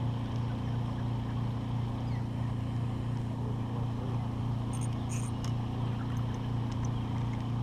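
A boat motor running at a steady, unchanging low hum, with a few faint ticks about five seconds in.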